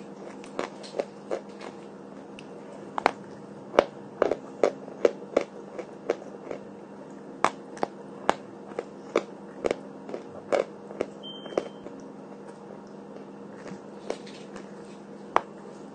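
Dry chalk being bitten and chewed close to the microphone: sharp, irregular crunches, about one or two a second, over a faint steady hum.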